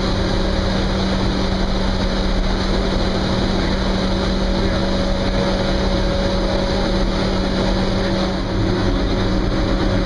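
Loud, steady boiler-room machinery noise, around 91 dB: a constant roar with a strong low hum and a fainter, higher steady whine running through it.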